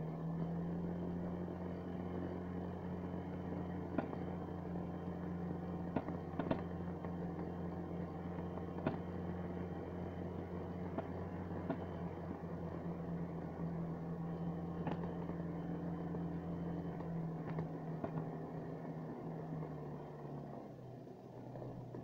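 Snowmobile engine running at a steady cruising speed over snow, with occasional sharp knocks as the machine rides over bumps. Near the end the engine note drops as the throttle eases off.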